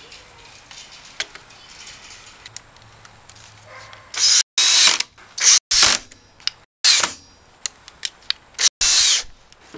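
A few faint clicks, then about four seconds in a DeWalt 18-volt cordless drill runs in several short bursts as it bores into a wooden board.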